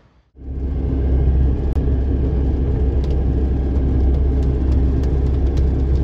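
Car driving on a wet road, heard from inside the cabin: a steady low rumble of engine and road noise that cuts in suddenly about half a second in.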